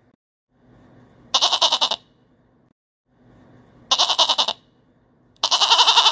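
Goat bleating three times, each bleat quavering. The first two are short, about half a second each; the third is longer and is still going at the end.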